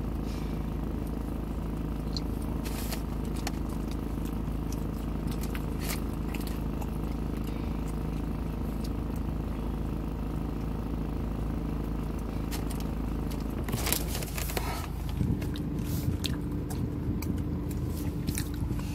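Chewing and biting into a soft taco close to the microphone, with small wet clicks, over the steady hum of a car. About three quarters of the way through come a few louder knocks, and the hum changes to a different steady drone.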